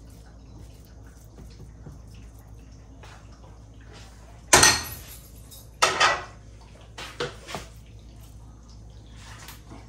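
Cookware clattering on a kitchen counter: one loud knock about halfway through, two more a second later, then lighter taps as a wooden spoon packs fried rice into a ceramic dish.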